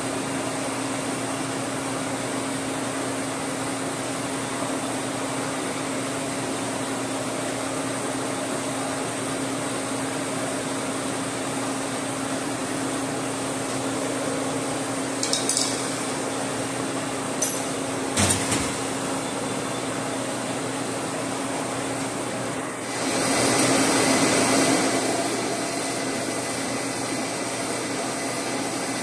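Steady machine hum in a metal shop, with a few sharp metal clinks from tools on steel while a heavy workpiece is clamped up on a boring mill table. About two-thirds of the way through, a loud rushing noise swells for about two seconds and fades.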